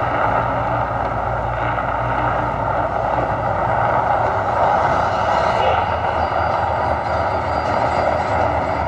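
Mirage Volcano show erupting: a loud, steady, deep rumbling roar as gas-fed flames burst along the top of the artificial volcano, the show's amplified rumble effects mixed with the burning flame jets.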